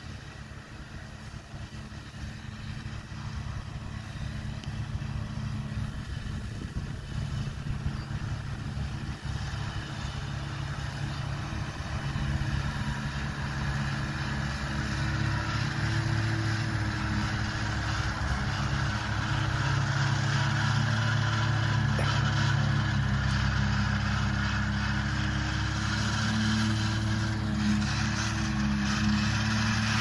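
Farm tractor's diesel engine running steadily under load while driving a disc mower through hay, a low drone that grows louder over the first twenty seconds as it comes closer, then holds.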